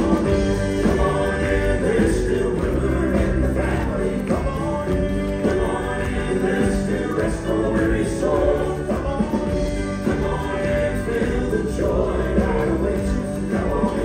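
Southern gospel male quartet singing in close harmony, backed by instruments, at a steady level with no pauses.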